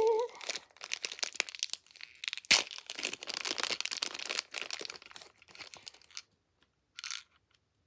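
A clear plastic packaging bag crinkling and crackling as hands work a small toy makeup palette out of it, with one sharp click about two and a half seconds in. The rustling dies away about six seconds in, with one short last crinkle a second later.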